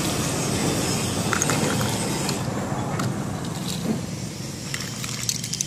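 Metal bottle caps clinking against each other and into a plastic tray as they are scooped up and dropped in, with scattered light clicks and a quick cluster near the end, over a steady low rumbling noise.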